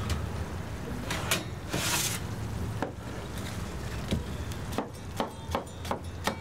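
Stainless-steel hotel pan of potato gratin being handled out of an oven rack with a scrape and a couple of knocks, then a metal bench scraper cutting the gratin into portions, its blade clicking sharply against the pan about ten times in quick succession near the end.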